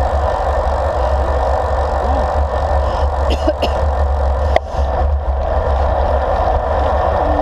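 Wind buffeting the microphone of a handlebar-mounted GoPro on a moving road bike: a steady, loud rumbling rush. A single sharp click about four and a half seconds in.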